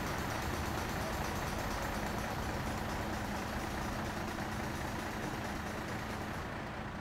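Steady vehicle engine and road noise with a low, even hum, fading toward the end.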